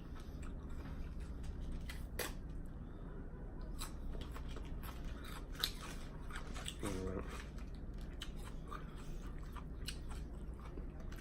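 Close-miked chewing of a chicken lettuce wrap: crisp lettuce crunching, with many scattered sharp crunches and mouth clicks.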